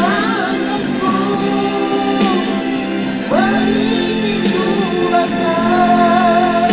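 Music with a singing voice: a sung melody with long held, wavering notes over a steady accompaniment.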